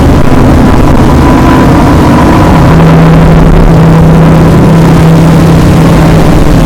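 Very loud, harsh static noise with low droning hums beneath it, like a signal being jammed. A steadier low hum comes in about two and a half seconds in and drops out near the end.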